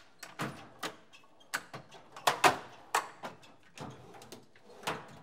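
Hand tools clattering and clicking against a perforated steel workbench as they are picked through and moved: a dozen or so irregular sharp knocks, the loudest about two and a half seconds in.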